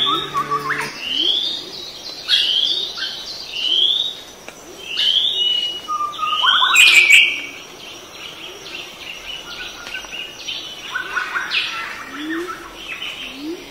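Birds chirping: short rising notes repeated about once a second, with a louder, harsher call about seven seconds in.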